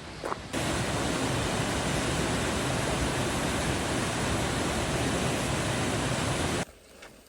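Steady rush of fast-flowing water, starting suddenly about half a second in and cutting off near the end.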